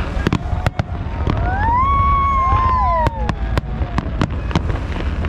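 Fireworks going off in a rapid series of sharp bangs over a steady low rumble. About a second in, a pitched sound rises, holds and falls away over roughly two seconds.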